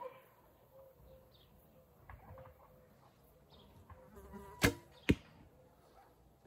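A 40 lb Bodnik Bows Mohawk Hunter bow is shot. The string releases with a sharp snap about four and a half seconds in, and about half a second later comes the sharp hit of the wooden arrow striking the target. Before the shot there are soft handling sounds of the arrow being nocked and the bow drawn.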